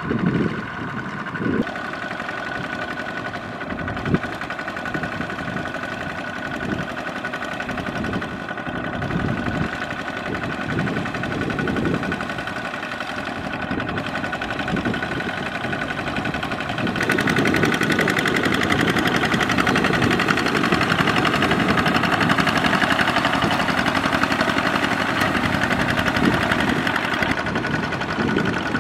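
Single-cylinder diesel engine of a walk-behind two-wheel tractor running steadily under load, dragging its cage wheels through a flooded rice paddy. The drone steps up in loudness a little over halfway through.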